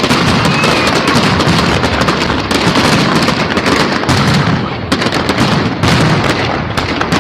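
Fireworks going off: a dense, rapid run of sharp crackles and pops, many per second.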